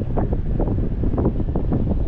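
Wind from a paraglider's flight buffeting the microphone: a loud, steady low rumble with quick, uneven gusts.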